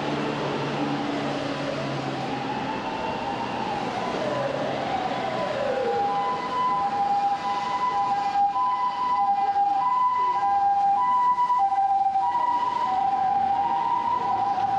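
Emergency vehicle siren on a Japanese street: a wailing tone that glides slowly up and down, switching about six seconds in to the two-tone hi-lo "pee-po" pattern of a Japanese ambulance, which grows a little louder.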